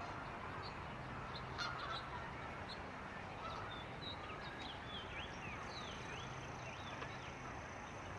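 Geese honking, loudest about a second and a half in, then many short, high, falling chirps from small birds through the second half.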